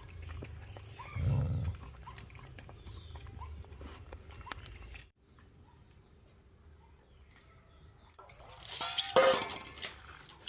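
A loud animal call with a clear pitch, near the end. Earlier there is rustling and clicking with a low thump about a second in, which stops abruptly about halfway through.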